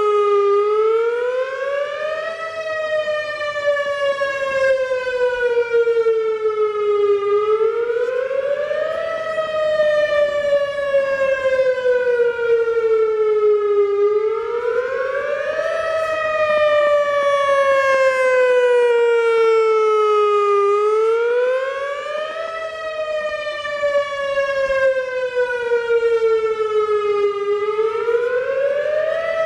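Whelen WS-2000R electronic tornado siren sounding from its rotating speaker array. The pitch climbs quickly, then slides slowly back down, repeating about every six and a half seconds. Crackling and popping from the collector rings that feed the 360-degree rotating speaker array is normal for this model.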